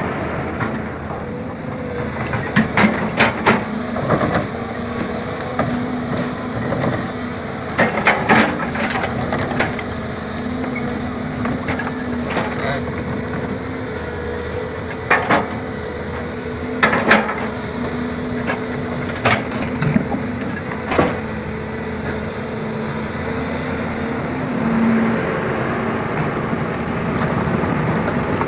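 Volvo EC210B crawler excavator's diesel engine running with a steady hum while it travels on its freshly fitted track chain, with irregular sharp clanks from the tracks every second or few.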